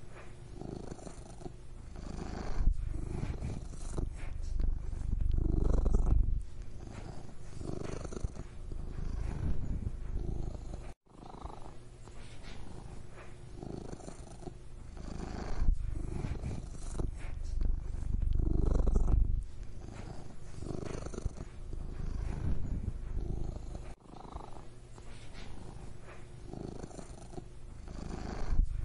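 Domestic cat purring, a low rumble that swells and fades with each breath. The purr breaks off for an instant about eleven seconds in, and dips briefly near twenty-four seconds.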